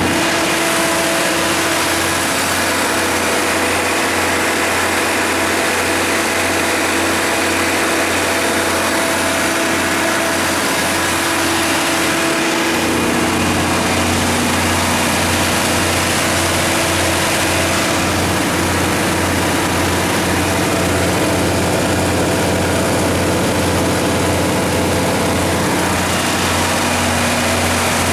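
Detroit Series 60 inline-six natural gas engine of a Katolight 200 kW generator set running at a steady speed, a constant low-pitched engine hum.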